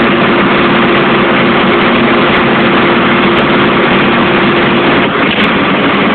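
Large diesel mining haul truck engine running loudly and steadily, heard close up from on board, a Komatsu HD785-5 of about 90 tons capacity. A steady whine over the engine noise stops about five seconds in.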